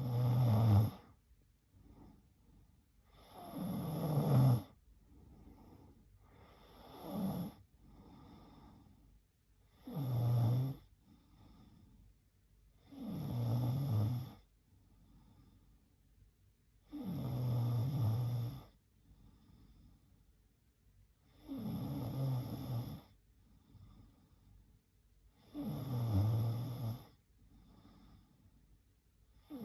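A woman snoring in her sleep: a low-pitched snore about every three and a half seconds, each lasting a second or so, with quiet gaps between.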